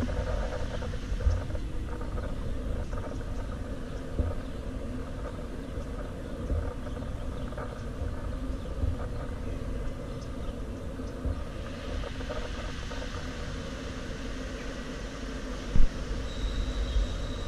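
City street ambience: a steady low rumble of passing traffic with scattered small knocks, a hiss that swells in about two thirds of the way through, and one sharp thump near the end.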